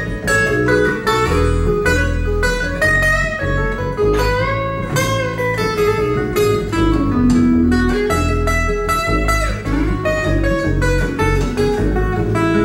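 Instrumental break of acoustic guitar and upright bass: the acoustic guitar picks a run of quick notes while the upright bass plucks low notes underneath.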